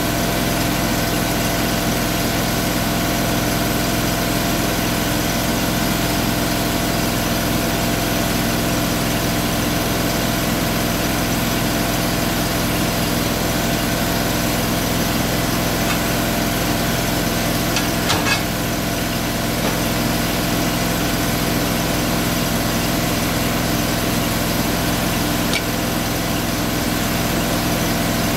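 An engine running steadily at idle. There is a short knock about two-thirds of the way through and a faint click near the end.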